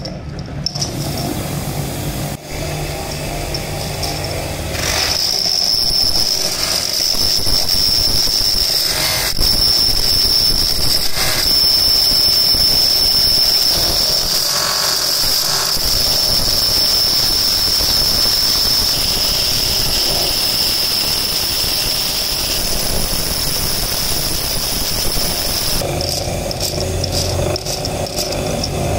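Electric motor driving a wire brush wheel that scrubs a rusty steel roller bearing, then a grinding wheel pressed against the bearing's steel race, giving a steady high-pitched squeal of metal being ground. The squeal starts about five seconds in and stops a few seconds before the end, leaving the motor running.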